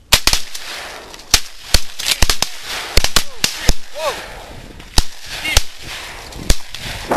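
Shotgun volley at a flock of teal: several shotguns fire a ragged string of about a dozen sharp reports over some six seconds. The loudest come right at the start and around three seconds in, with the last few spaced out toward the end.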